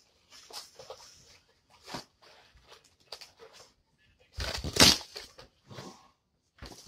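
Cardboard box being pulled and torn open by hand: scattered crinkling and rustling, with a louder stretch of tearing and crushing about four and a half seconds in.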